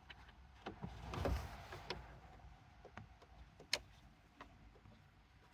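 Scattered light clicks and taps of screws, a tool and plastic trim being handled while fitting a car head unit into the dashboard, with one sharper click a little past halfway.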